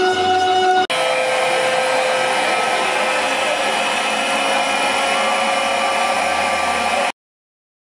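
Experimental noise music: a dense, steady wall of hiss with a few held tones, jumping abruptly to a new stretch of noise about a second in and cutting off suddenly about seven seconds in.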